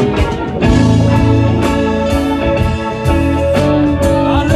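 Live band playing an instrumental passage, guitar carrying the lead over steady drum hits.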